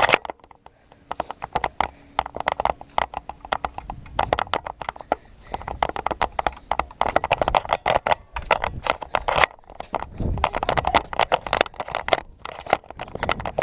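Quick, irregular footfalls and knocks, several a second: someone running and moving with a camera mounted on a Nerf blaster, so every step jolts and rattles the mount.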